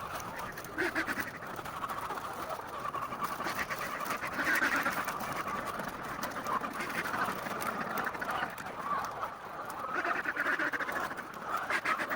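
A flock of laying hens clucking and squawking together in a continuous chorus, swelling and easing every few seconds.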